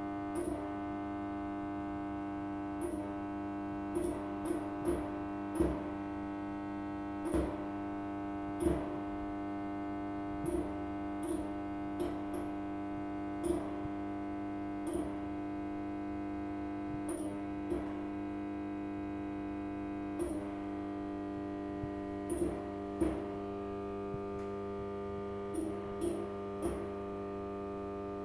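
Fluorescent light tube buzzing with a steady electrical hum of many overtones, broken by irregular sharp ticks every second or two.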